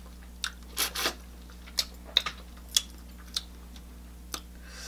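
Eating shrimp by hand, close to the microphone: a scattered run of about eight short, sharp, wet smacks and clicks.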